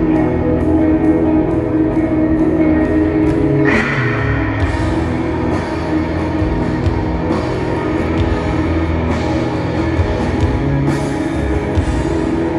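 Loud rock music with guitar and drums. About four seconds in, a crash brings in a new section.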